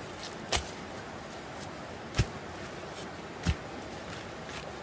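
Three sharp knocks, a second or so apart, with a few fainter ticks between them, over a steady background hiss.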